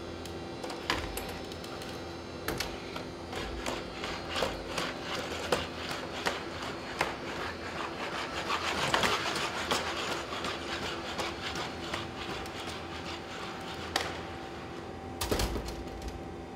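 Boston Dynamics SpotMini quadruped robots walking through a doorway: irregular taps and clacks of their feet on the hard floor over a steady electric hum, with a denser, louder stretch of steps and scuffing in the middle and a quick cluster of clicks near the end.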